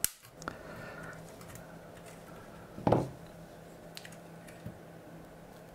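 One lead of the power supply's output protection diode being cut, shorted after reverse connection to a battery: a single sharp snap about three seconds in. A few faint handling clicks and a faint steady hum are also present.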